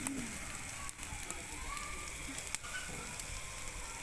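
Food sizzling on a charcoal barbecue grill, a steady hiss with a few sharp crackling pops from the burning charcoal, about a second in and again near the middle.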